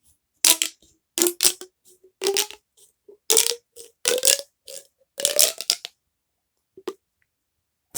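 Large plastic pop tube being stretched and squashed, giving short hollow popping bursts with a brief pitch about once a second, six times, then a single faint click near the end.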